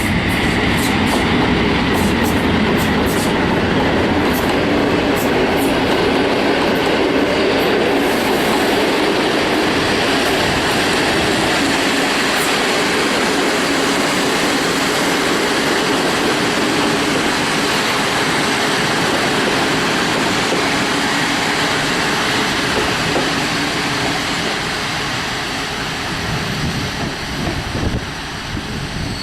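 Locomotive-hauled passenger train's carriages rolling past at low speed, entering a station. There is a steady rumble, with wheels clicking over rail joints in the first several seconds. The noise eases off near the end as the train slows to stop.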